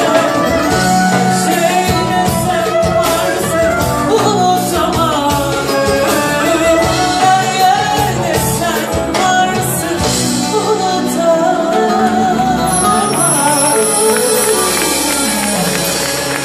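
Live band music with a woman singing a Turkish song into a microphone, backed by drum strokes.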